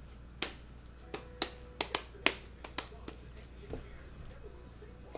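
A quick run of sharp plastic clicks and clacks, about nine in under three seconds, as a shrink-wrapped pack of super thick plastic card top loaders is handled on the table.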